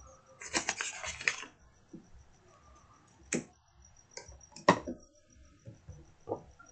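A quick rattle of small hard clicks and taps, then three single sharp taps spread over the next few seconds, the second of them the loudest: small metal tools or parts being handled and set down on a phone-repair bench. A faint steady high chirping of crickets runs behind.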